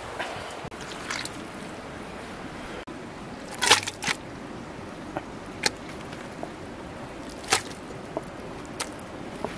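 Raw pig intestines handled and dropped into a metal cooking pot: a handful of short, sharp wet slaps and squelches, the loudest a little after three and a half seconds in, over a steady background hiss.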